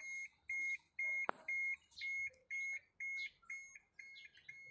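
Steady electronic beeping: a single high tone repeating about twice a second, with one sharp click about a second in.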